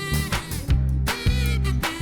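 Upbeat background music with a steady beat and bass line.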